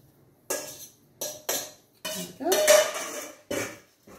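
Metal salad servers scraping and clinking against a stainless steel mixing bowl as leafy salad is pushed out of it, a run of separate clatters with the loudest, busiest stretch a little past the middle.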